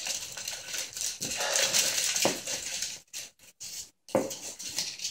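Ferret scrabbling and rustling inside a fabric play tunnel: a dense crinkling rattle full of small clicks. It drops away about three seconds in and starts again about a second later.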